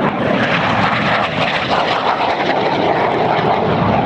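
Jet noise from BAE Hawk T1 display jets flying a low pass, a loud, steady rushing sound that holds throughout.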